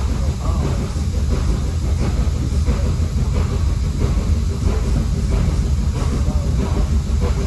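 Steady low rumble of a moving train on the railway.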